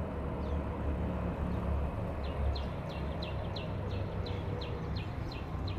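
A bird calling a quick series of short, downward-sliding high notes, about three a second, starting about two seconds in, over a steady low rumble.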